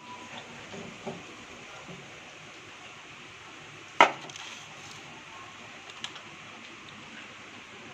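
Faint kitchen handling noises with small clicks, and one sharp, loud clack about four seconds in.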